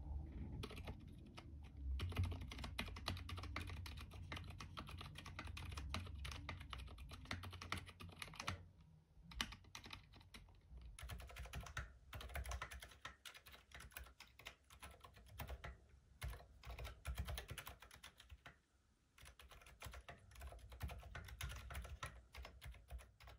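Typing on a Minivan 40% mechanical keyboard fitted with Aqua Zilent V2 (62 g) silent tactile switches: a quiet run of muted keystrokes, pausing briefly twice.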